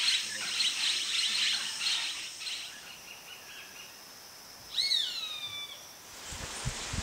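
Rainforest birds chattering in quick bursts over a high steady hum for the first few seconds, then one clear whistled call that falls in pitch about five seconds in. A steady rushing noise sets in near the end.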